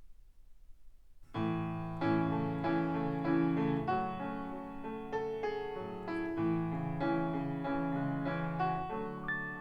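Solo piano intro of a recorded song played back over Harbeth SHL5+ loudspeakers and picked up by a microphone in the room. The piano comes in about a second in, after a faint low hum.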